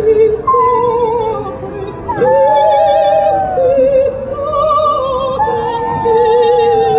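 A dog howling along with operatic singing: long howls that slide slowly downward in pitch over a singer's held, wavering notes.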